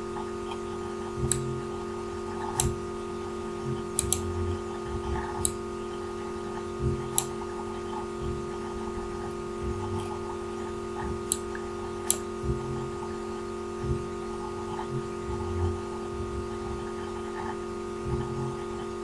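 Computer mouse clicking, about ten sharp clicks at irregular intervals, over a steady electrical hum.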